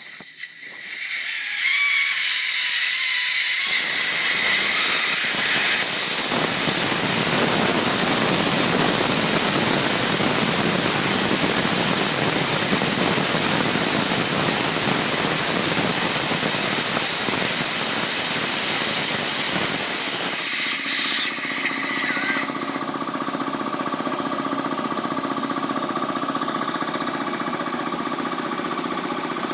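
Hitachi Bebicon 1 HP air compressor on its test run: a loud hiss of compressed air blowing out for about twenty seconds. Near the end the hiss stops and the compressor's motor and pump run on with a steady hum.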